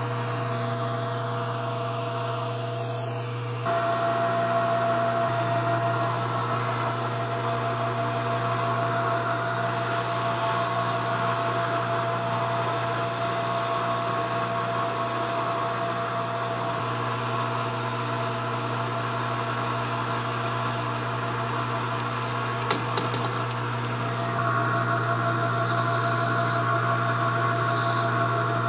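Metal lathe running steadily with a motor hum while a metal workpiece is turned and then drilled. The sound grows louder about four seconds in and again near the end, with one brief click about two-thirds of the way through.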